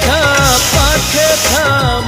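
Background music: an Indian film-style song with a sung melody over a steady beat.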